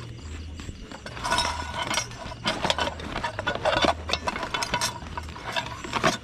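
Irregular clinking and knocking of hard objects being handled, starting about a second in.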